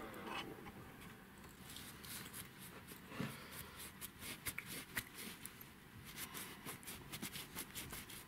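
Faint rubbing of a cloth rag over a wet metal fishing spoon lure and its treble hook, with scattered light clicks and ticks as the metal is handled.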